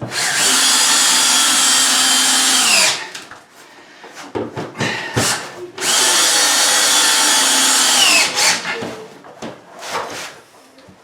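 Power drill driving screws into cement backer board: two runs of a few seconds each, the motor's pitch falling as each one ends, with clicks and knocks between them.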